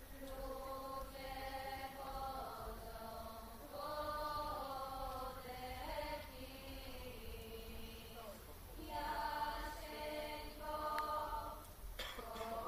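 A women's vocal group singing a cappella in several-part harmony. The voices hold long, chant-like notes in phrases a few seconds long, with brief breaks between phrases.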